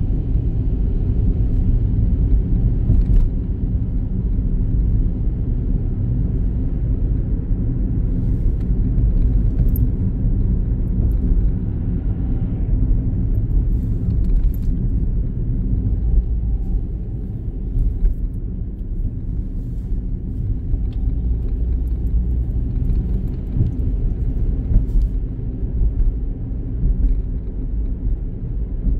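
Inside a moving car: steady low rumble of engine and road noise while driving, easing a little just past the halfway point.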